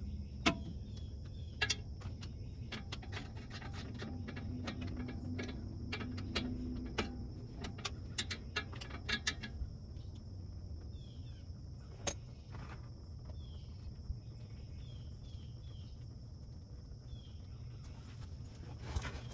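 Hand ratchet clicking in short, irregular runs as the transmission pan bolts are loosened, mostly over the first half. Behind it, a steady high insect drone and a few short bird chirps.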